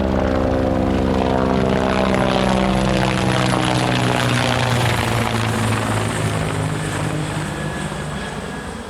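Recorded helicopter flyover sound effect: the rotor and engine pass overhead, their pitch dropping as the helicopter goes by, then fading away near the end.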